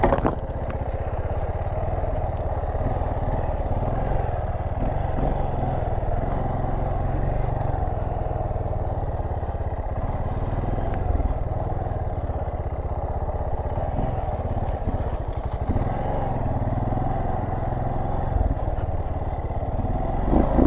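Dirt bike engine running steadily at low trail speed, with a few faint knocks from the bike over the rough ground.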